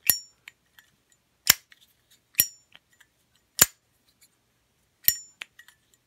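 Zippo Armor windproof lighter's lid being flicked open and snapped shut, five sharp metallic clicks about a second apart: each opening has a brief high ring, each closing a plain clack. The Armor case is thick brass, and its clicks have a sound its owner calls not fantastic.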